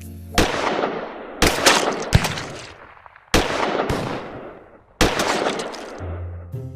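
Birthday candles that are really fireworks going off: a rapid series of loud bangs, about four big ones with smaller cracks between, each trailing off in a fading hiss.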